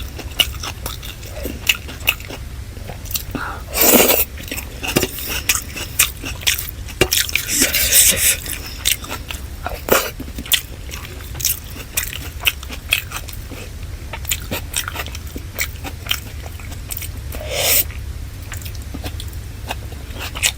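Close-miked eating of chicken biryani: wet chewing and lip smacks with many sharp little mouth clicks, and a couple of louder bursts about four seconds in and near the end. A steady low hum runs underneath.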